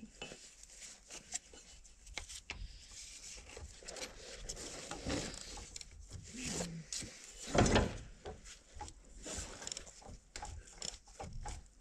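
Irregular clicks, knocks and rubbing of a ratchet bar working an engine turning tool as a Caterpillar 3406B diesel is barred over by hand. There is a louder clank about two-thirds of the way in. The crankshaft is still turning hard, the sign of the seizure being traced.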